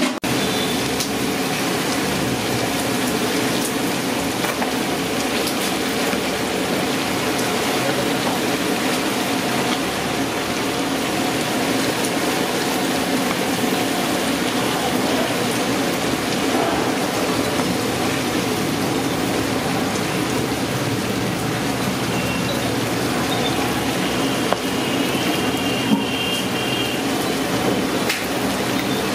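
Chicken pieces sizzling steadily in a hot iron kadai as they fry with sauce.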